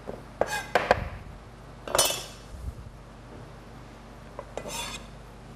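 Kitchen utensils knocking and clinking in a few short, separate sounds: a knife on a cutting board and a small bowl against a stainless steel pot. The loudest comes about two seconds in.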